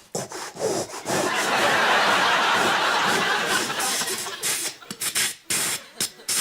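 Studio audience laughing, a sustained swell of laughter followed by scattered short bursts near the end.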